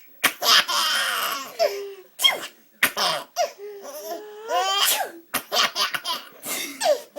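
A woman sneezing several times in a row, with a baby laughing in high, squealing bursts between and after the sneezes.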